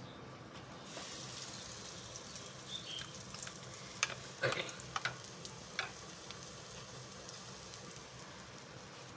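Breaded potato cutlets frying in hot oil, a steady sizzle that swells about a second in, with several sharp clicks a little past the middle.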